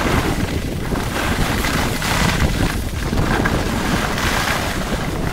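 Wind buffeting the microphone of a skier moving downhill, a steady low rumble. Over it, the hiss of skis sliding and scraping on packed snow swells every second or so with the turns.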